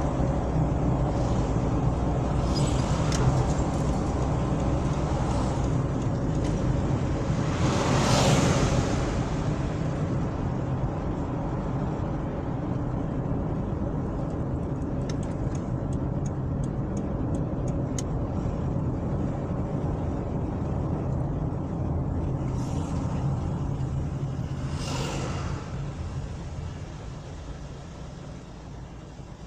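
Road and engine noise inside a moving car's cabin: a steady low rumble with tyre hiss. Other vehicles pass twice, swelling and fading, once about a quarter of the way in and again near the end. A short run of evenly spaced light ticks comes midway, and the noise drops off at the end as the car slows in traffic.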